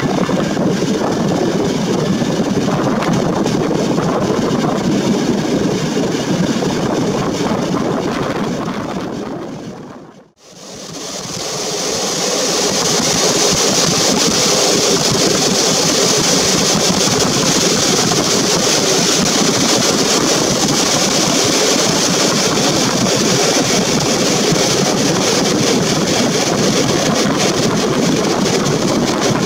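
Passenger train running, heard from an open carriage window: steady wind rush and rumble of the wheels on the rails. About ten seconds in the sound fades out almost to silence and fades back in, with more wind hiss afterwards.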